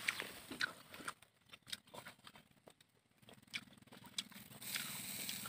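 Small wood cooking fire crackling with scattered light clicks and pops, quieter in the middle. A faint steady hum comes in about three seconds in.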